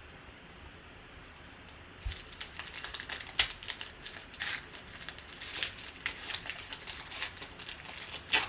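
Trading cards and packs being handled: after about two seconds of quiet, a run of irregular clicks, snaps and rustles as cards are flipped, slid and shuffled.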